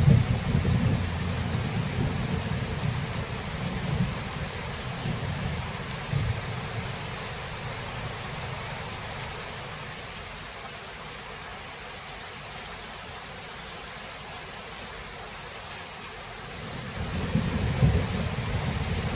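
Steady rain with rolling thunder. A low rumble of thunder dies away over the first several seconds, leaving the even hiss of the rain, then builds again near the end.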